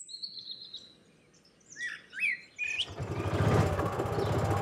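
Birds chirping with short whistles and gliding calls. About three seconds in, the steady low engine rumble of a Kawasaki Mule utility vehicle comes in as it pulls up on a dirt trail and becomes the loudest sound.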